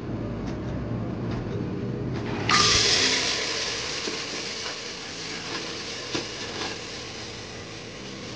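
Pot of black chickpeas cooking on the stove: a low, steady bubbling, then about two and a half seconds in a sudden loud hiss that slowly fades.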